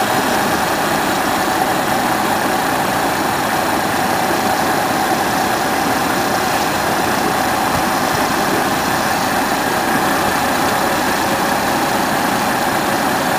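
Heavy diesel engine of a dump truck running steadily, with no revving.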